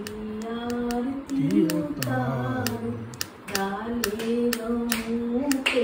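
A woman singing a Hindu devotional bhajan unaccompanied, holding long, wavering notes, with sharp hand claps between and over the phrases.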